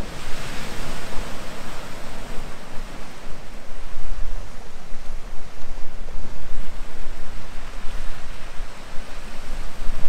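Wind gusting over the microphone in a loud, unsteady rush with a buffeting low rumble, mixed with the wash of sea waves at the shoreline.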